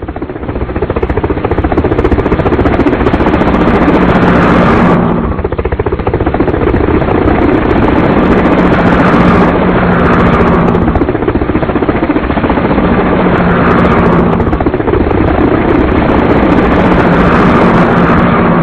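Helicopter running steadily: a loud drone with a few steady low tones under a hiss that swells about every four to five seconds.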